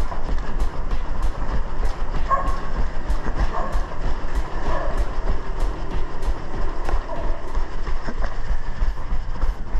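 Running footsteps on pavement, a quick steady rhythm of about two to three strides a second, with wind rumbling loudly across a head-mounted action camera's microphone.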